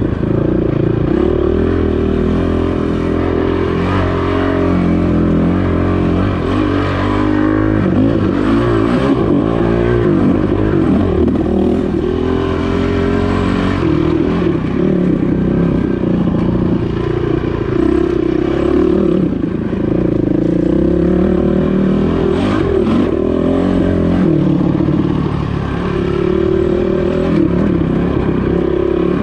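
Dirt bike engine running hard and revving up and down continuously as the bike is ridden along a rough forest single-track trail.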